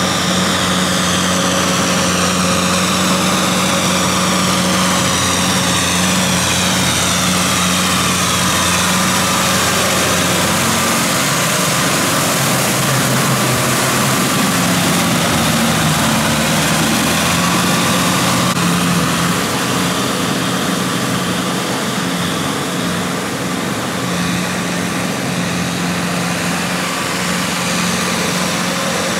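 Kubota tractor's diesel engine running steadily under load as it pulls a rotary tiller through a flooded rice paddy. There is a constant engine hum, with higher whines that rise and fall now and then.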